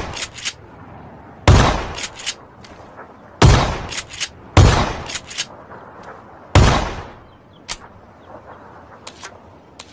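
Four gunshots at irregular spacing, each followed by two or three quick sharp clicks, with a few lone clicks near the end.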